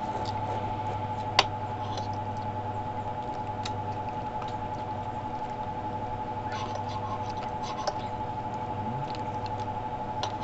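Eating sounds: cutlery clicking against a glass bowl and a plate, and the chewing and sucking of chicken feet, with a sharp click about a second and a half in, over a steady hum.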